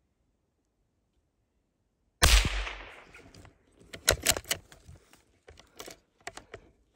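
A single gunshot about two seconds in, its report dying away over about a second, followed by a run of sharper, quieter cracks and rustling.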